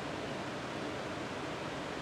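Sea surf on a beach: a steady, even wash of breaking waves.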